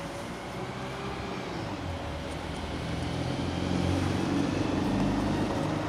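A low, steady engine drone from a passing motor vehicle or aircraft, growing louder from about halfway through.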